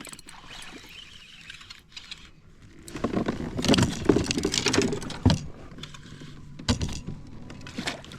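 Clattering and knocking of a bass being handled and landed into a kayak. The burst of rattling starts about three seconds in, with a sharp knock near five seconds and another near seven.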